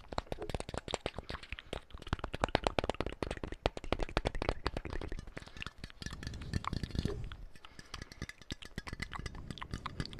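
Close-miked ASMR mouth sounds with tapping: a dense, uneven run of quick clicks and taps.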